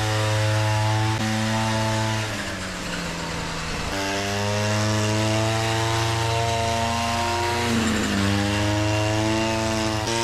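Petrol brush cutter running at high speed with a rotary steel wire brush scrubbing weeds out of paver joints, a scraping hiss over the engine note. The engine pitch drops under load about two seconds in, recovers near four seconds, and dips briefly again near eight seconds as the brush bites into the pavers.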